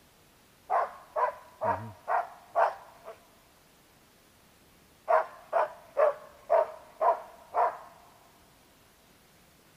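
Hunting laika barking at a squirrel up a tree, baying to mark where it is. Two runs of barks, five then six, about two a second, with a pause of about two seconds between them.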